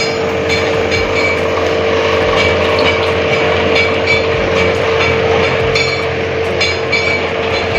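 A steady mechanical hum over a rushing noise, broken by irregular sharp metallic clinks about twice a second.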